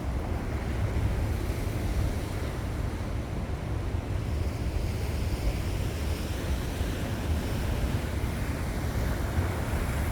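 Sea waves washing on the shore under a steady rush of wind, with wind buffeting the microphone.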